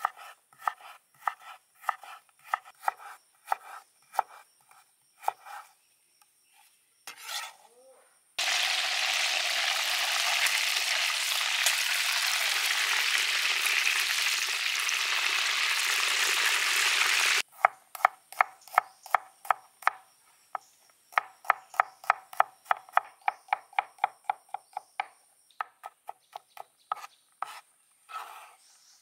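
A chef's knife chopping on a wooden cutting board at about two or three strokes a second. About eight seconds in, a whole chicken sizzles in hot oil in a wok for about nine seconds; the hiss stops abruptly. Then rapid chopping at about four or five strokes a second, mincing garlic.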